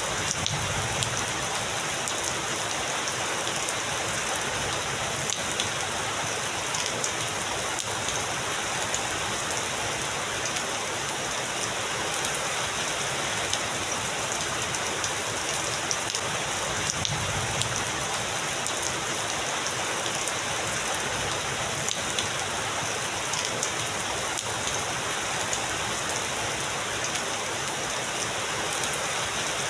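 Heavy rain falling steadily, an even hiss with individual drops ticking through it.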